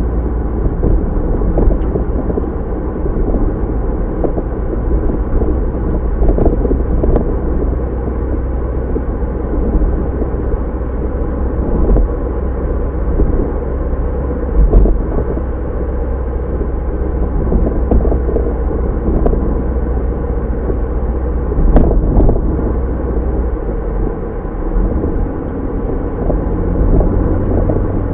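A car driving, heard from inside the cabin: steady low road and engine rumble with tyre noise, and the deepest part of the rumble changes a few seconds before the end.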